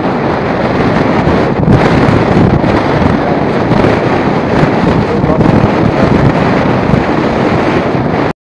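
Strong mountain wind blasting across the microphone: a loud, steady rush of wind noise that cuts off suddenly near the end.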